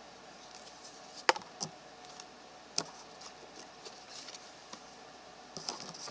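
Trading cards being handled on a table: a few sharp taps and clicks, the loudest about a second in, with light rustling of cards in between.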